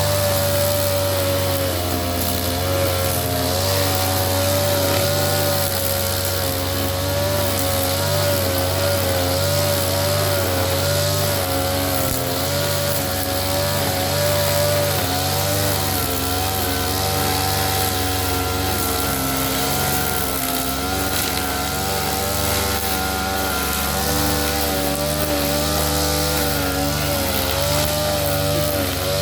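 Ogawa brush cutter engine running steadily at high throttle, its high pitch wavering slightly up and down.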